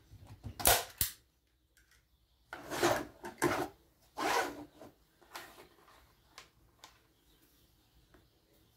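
A hand staple gun snapping twice in quick succession, about a second in, stapling leather to a wooden board. Then a couple of seconds of scraping and shuffling as the wooden board is slid and turned on a plastic cutting board, followed by a few light ticks.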